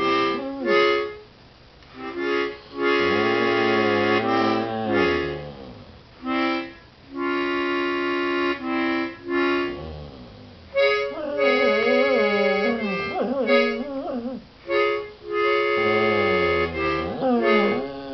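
Harmonica playing held chords in short phrases while a dog howls along, its voice sliding up and down in pitch, most strongly in the second half.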